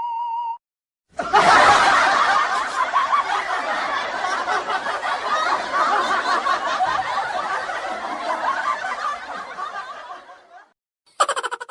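Audience laughter, a laugh-track sound effect. It starts about a second in, stays loud for several seconds, then fades away near the end.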